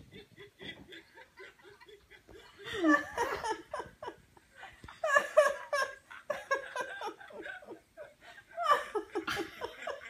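Laughter: quick rhythmic giggling throughout, breaking into three loud bursts about three, five and nine seconds in.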